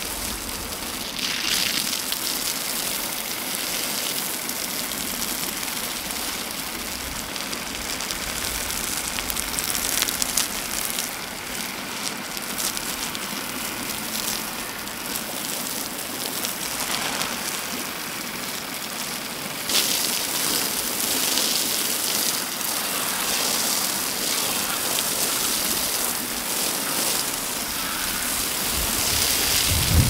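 Garden hose with a spray nozzle watering bare soil: a steady hiss of fine spray and droplets landing on the earth, louder about two-thirds of the way through.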